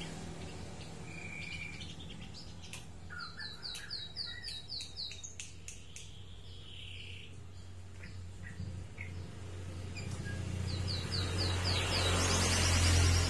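White-rumped shama (murai batu) singing: quick runs of repeated down-slurred whistled notes, one about three seconds in and another near the end. A steady low hum runs underneath and swells toward the end.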